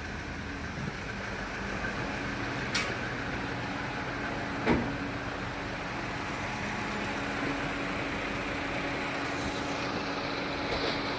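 Toyota Etios Liva petrol four-cylinder engine idling, misfiring: it is logging misfire codes for cylinders 3 and 4. Two sharp clicks, about three and five seconds in.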